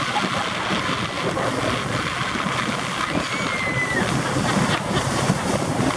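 Steady rush of water and wind noise from a pontoon boat under way on choppy lake water. A brief high tone comes and goes about three seconds in.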